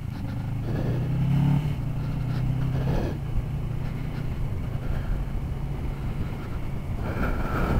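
Motorcycle engine running while being ridden, under a steady rush of road and wind noise. The engine note is strongest for the first three seconds, then drops back and stays steady.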